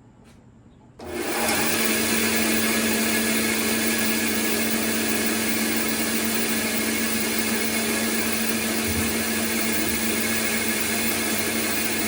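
Bandsaw with a 3/4-inch blade switched on about a second in, its motor coming up to speed within a moment and then running steadily with a constant hum.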